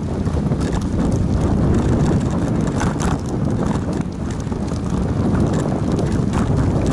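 Bicycle rolling over a cracked concrete path: a steady low rumble from the tyres and jolting, with many small knocks and rattles as it goes over the cracks and slab joints.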